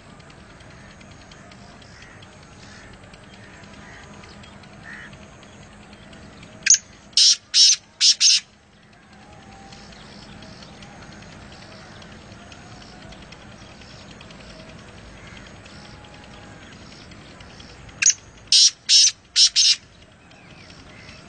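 Black francolin calling twice, about eleven seconds apart. Each call is a quick run of about five loud, harsh notes.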